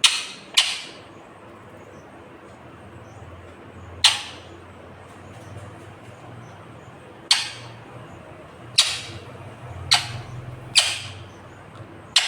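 Ringneck parakeet giving short, sharp squawks, about eight of them at irregular intervals, two close together at the start and a quick run from about seven seconds on.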